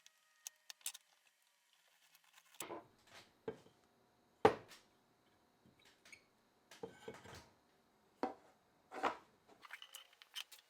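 Irregular knocks and clinks of small hard parts and tools being handled and set down, about a dozen, the loudest about four and a half seconds in.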